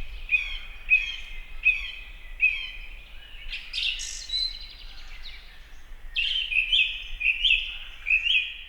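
Birdsong: a small bird repeating short, downward-sweeping chirps about once every 0.7 s, with a denser flurry of calls around the middle.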